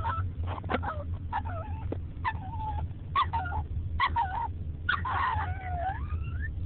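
Bichon Frise puppy giving short whining yips about once a second, then a longer howl about five seconds in that dips and then rises in pitch, a howl mixed with a yawn. A car's low steady hum runs underneath.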